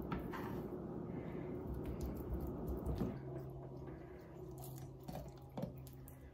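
Soft squishing and faint light taps of hands pressing and spreading grated boiled carrot over a salad layer.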